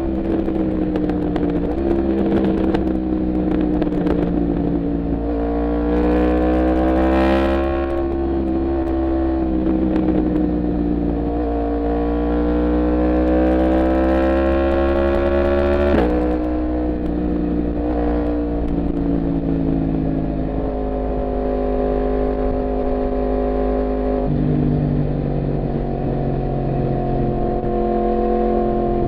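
Yamaha MT-10's crossplane inline-four engine running while the bike is ridden, its pitch rising and falling with the throttle. The pitch drops sharply about halfway through.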